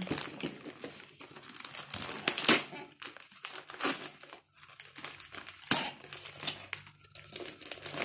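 Christmas wrapping paper crinkling and tearing in irregular bursts as a present is pulled open by hand.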